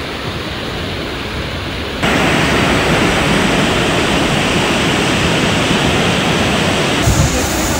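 Fast-flowing floodwater rushing, a steady noisy wash that gets abruptly louder about two seconds in. A dull low thump near the end.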